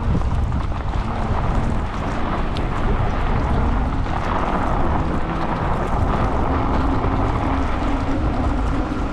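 Wind buffeting the microphone as a bicycle is ridden along a snowy road: a steady low rumble with a hiss over it. A low steady hum joins in the last couple of seconds.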